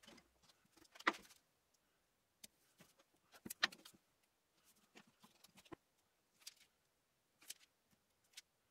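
Wide tape being pulled off its roll and laid onto a plywood board: two short, sharp rips of tape unrolling, about a second in and again about three and a half seconds in, followed by fainter rustling and light taps as the strips are pressed down and smoothed by hand.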